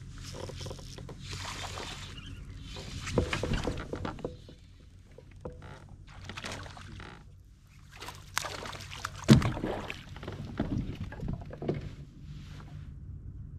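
Activity on a fishing kayak: irregular bursts of noise with several sharp knocks, the loudest knock about nine seconds in.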